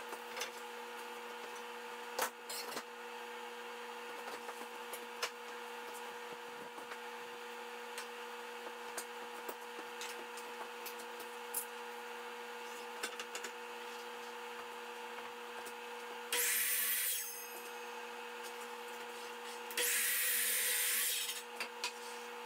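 Miter saw cutting through 2x4 lumber twice, a cut of about a second two-thirds of the way in and a slightly longer one near the end. Between them come scattered knocks and clicks of wood being handled, over a steady background hum.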